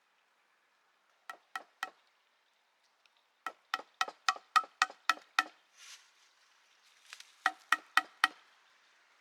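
Sharp wooden knocks with a short hollow ring, in three runs: three strikes, then eight at about four a second, a brief rustle, then four more.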